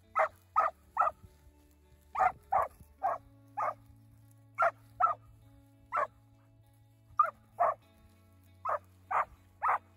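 Young Hanging Tree cowdog pup barking repeatedly at cattle: about fifteen short, sharp barks, often in pairs, coming every half second to a second.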